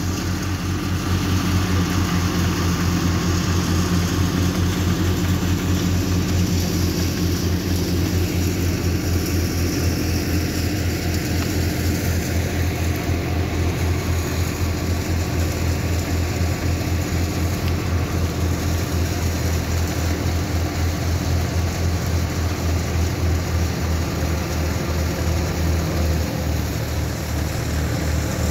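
Farm tractor's diesel engine running steadily with a low, even chugging.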